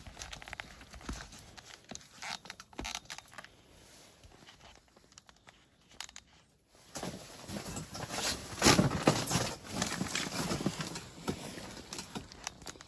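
Handling noise: jacket fabric rustling and rubbing against the phone's microphone, with scattered knocks. The rustling is loudest in the second half.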